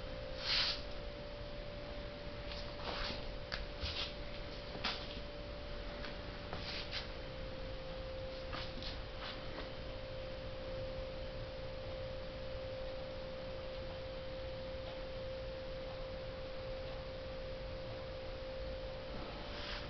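A steady, unwavering electronic tone, with a scatter of short clicks and taps in the first half, the strongest about half a second in.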